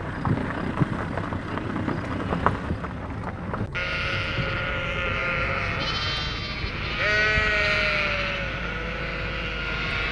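A flock of sheep bleating, several calls overlapping from about four seconds in, the loudest and longest about seven seconds in. Before that, scattered clicks.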